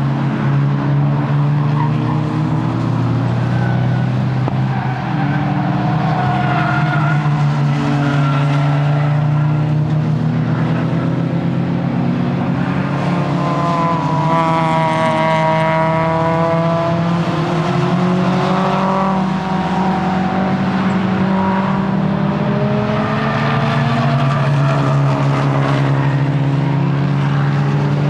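Nissan S15 Silvia's engine being driven hard around a short circuit. The note holds mostly steady, with its pitch rising and falling as the revs change, most clearly around the middle and again near the end.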